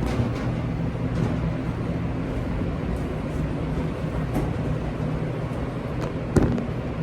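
Steady low machine hum with a few light clicks, and one sharper knock about six seconds in.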